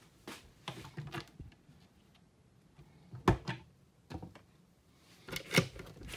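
A series of sharp knocks and clicks, the loudest about three seconds in and another cluster near the end: wooden cabinet doors and their latches being opened and shut.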